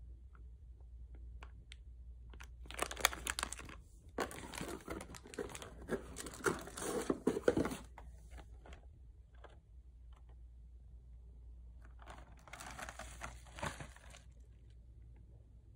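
Plastic snack packaging crinkling and rustling as snacks are handled and taken from a cardboard snack box, in three bursts: a short one around three seconds in, the longest and loudest from about four to eight seconds, and another around thirteen seconds.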